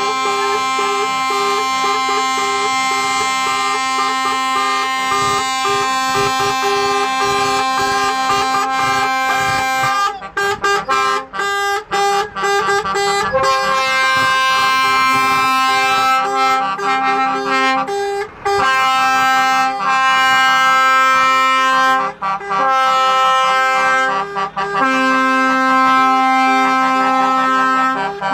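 Music of long held chords that change every few seconds, broken by several brief dropouts.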